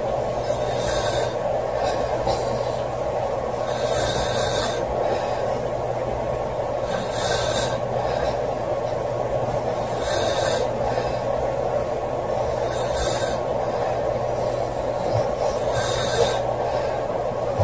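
A girl snoring loudly in her sleep, with a raspy, hissing breath about every three seconds over a steady background noise.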